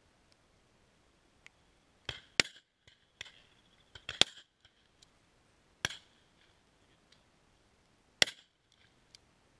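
Shotgun shots fired at flying pheasants: a string of sharp single cracks several seconds apart, the loudest about two, four, six and eight seconds in, with fainter, more distant shots between them.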